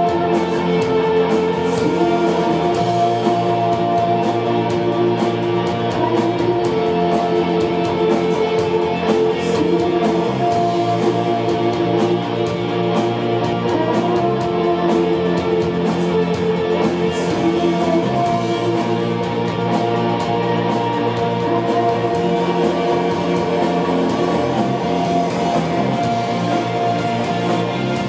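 A rock band playing live: layered electric guitars holding long, sustained chords over a bass line that shifts every couple of seconds.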